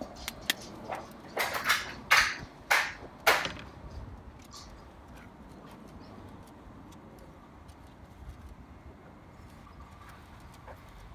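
A Labrador puppy's paws and nails on a perforated metal playground deck: a run of short scuffs and taps in the first few seconds, the loudest about two to three seconds in, then only faint scattered ticks.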